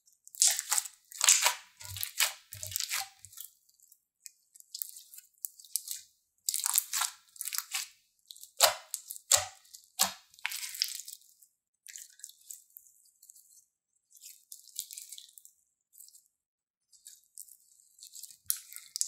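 Clear slime studded with foam stars being stretched, pulled apart and pressed by hand, making irregular bursts of crackling and squishing. The crackling is loudest in the first few seconds and again midway, and softer in between.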